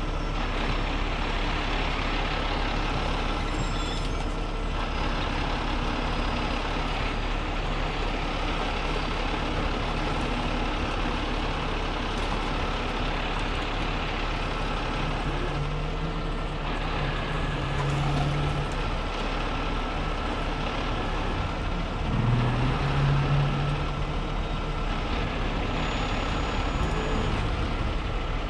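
Heavy rotator tow truck's diesel engine running steadily while winching a pickup up an embankment. Its low note strengthens briefly about halfway through and rises again a few seconds later.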